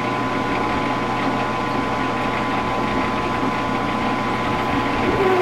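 Metal lathe turning slowly at about 70 RPM while a Drill Hog spiral-fluted stepped drill bit, hand-fed from the tailstock, cuts into the next step to enlarge the bore of a 3/4-inch cord strain-relief connector held in the three-jaw chuck. A steady machine hum with a thin steady high tone.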